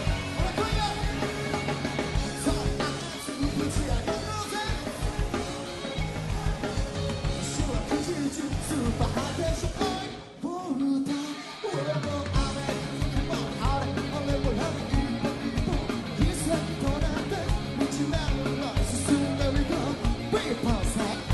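Upbeat rock-style pop song with guitar, drums and vocals; the music drops away briefly about ten seconds in, then comes back.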